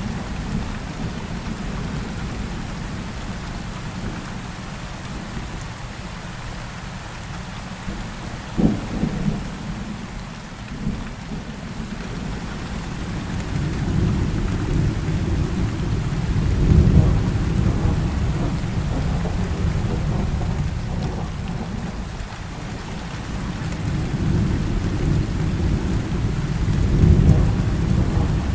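Heavy rain falling steadily with thunder: a short sharp crack about a third of the way through, then deep rolling rumbles that swell twice in the second half.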